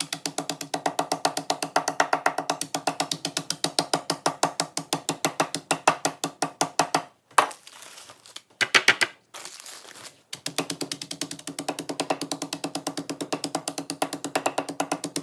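A small plastic hammer pounding Doritos in a zip-top plastic bag, fast even strikes several a second, crushing the chips to dust. About halfway through the pounding stops for a few seconds, with a couple of louder knocks and a rustle of the bag, then starts again.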